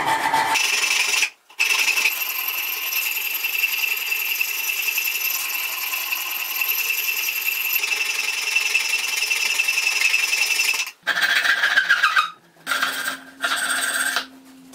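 Hand file rasping on the metal sides of a dovetail infill plane body clamped in a vise: long, steady filing that breaks off twice, then a few short separate strokes near the end.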